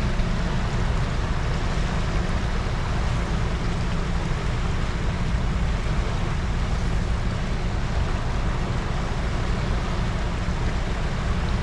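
Steady rush of fast, turbulent river water below a dam spillway, with a low rumble of wind on the microphone.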